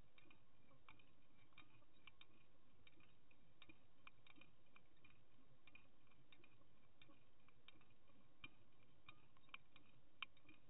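Faint, irregular ticking and clicks heard underwater, a few a second over a low hiss, with one sharper click near the end.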